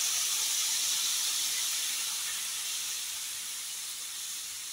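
Water being poured into a hot kadai of fried-down spiced potatoes and raw banana, sizzling with a steady hiss that slowly fades.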